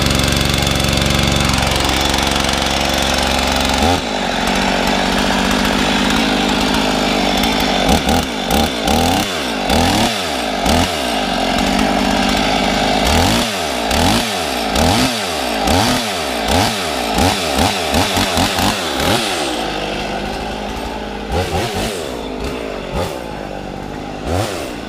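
Husqvarna 55 two-stroke chainsaw running just after a cold start. It runs steadily for about four seconds, then picks up to higher revs, then the throttle is blipped again and again, with the revs rising and falling in quick succession, before it drops back lower near the end.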